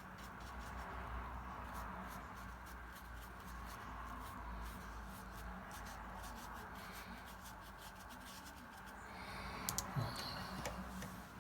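Watercolour paintbrush stroking and dabbing on paper: a soft scratching with many small ticks, over a low steady hum. A few sharper taps come about ten seconds in.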